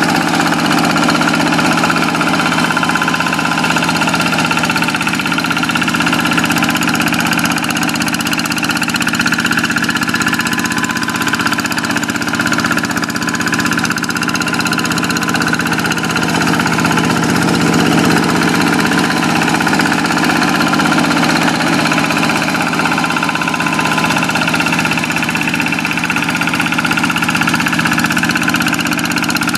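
Kubota single-cylinder diesel engine of a Quick two-wheel hand tractor running steadily under load while plowing a flooded rice paddy.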